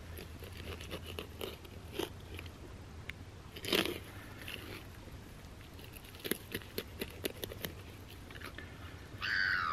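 A knife cutting a fish fillet away from the backbone on a plastic cutting board, making irregular small crunches and ticks as the blade goes through the bones, with a louder crunch about four seconds in. Near the end comes a short, high, falling call.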